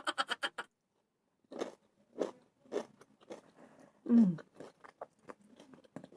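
Mouth chewing raw herring with chopped onion, soft crunches coming about twice a second, with a short falling "mm" hum about four seconds in.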